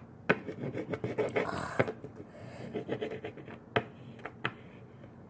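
A plastic toy figure and a cloth scratching and rubbing against a wet, soapy tabletop, with a few sharp knocks as the figure is tapped down.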